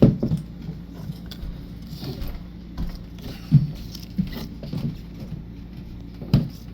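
Scattered light knocks and clicks of objects being handled, the loudest about three and a half seconds in and again near the end, over a steady low hum.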